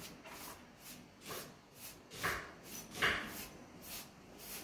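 A paint sponge rubbed in quick, repeated strokes over a textured relief-paint wall, about two or three brushing scrapes a second, with two louder ones near the middle. The sponge is laying metallic paint lightly onto the raised pattern.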